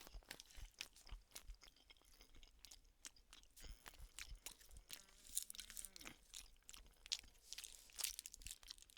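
A person chewing a mouthful of chicken tikka ready meal close to the microphone: quiet, irregular mouth clicks and soft chewing noises.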